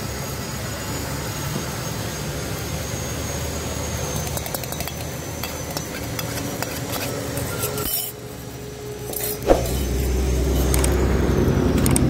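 Metal spoon clinking and scraping against a steel tumbler as beaten egg mixture is poured into a frying pan, with one sharp clink about nine and a half seconds in. A steady low rumble runs underneath and grows louder near the end.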